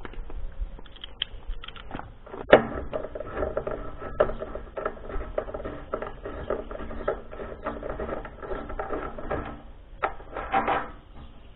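Ratchet wrench with a socket clicking rapidly as it undoes a bolt, after one sharp knock about two and a half seconds in, with a short clatter of the tool near the end.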